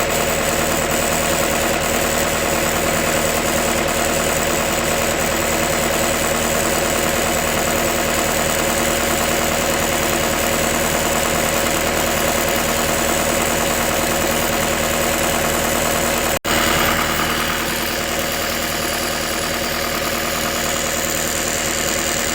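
Lincoln SAM 400 welder's engine idling steadily. About sixteen seconds in the sound breaks off for an instant, then the idle continues a little quieter.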